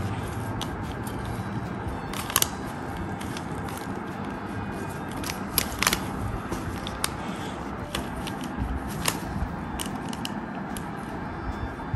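Plastic Banana Cube twisty puzzle being turned by hand: scattered sharp clicks as its layers snap round, the loudest about two and a half, six and nine seconds in, over a steady hiss.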